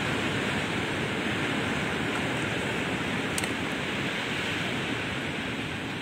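Steady rush of sea surf, with one faint click about three and a half seconds in.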